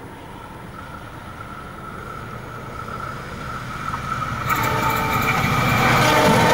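Diesel-electric locomotive hauling passenger coaches approaching along the track, its engine and wheel noise growing steadily louder. About four and a half seconds in, several steady tones come in together over the rising noise.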